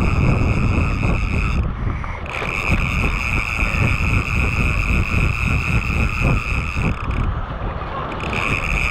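Wind buffeting the microphone with a heavy low rumble. Over it runs a steady high-pitched whine that cuts out briefly about two seconds in and again for about a second near the end.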